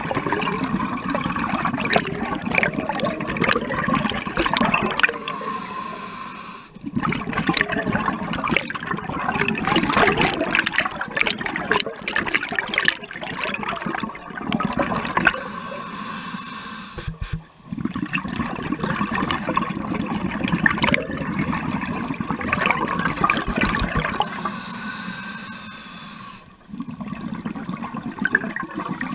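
Scuba regulator breathing heard underwater: long bursts of exhaled bubbles, broken three times by a shorter hissing inhale.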